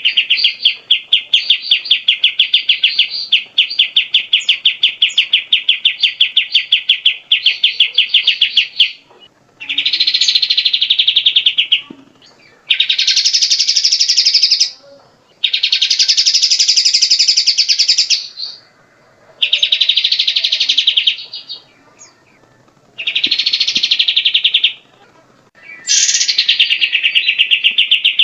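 Grey-cheeked bulbul (cucak jenggot) singing loud, rapid buzzy trills. It starts with one long trill of about nine seconds, then repeats shorter trilled phrases with brief pauses between them.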